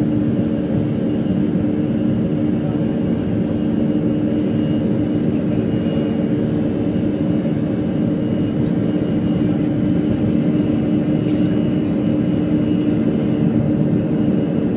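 Airliner's jet engines heard from inside the cabin during the climb after takeoff: a steady drone with a few held low tones and a faint high whine above them.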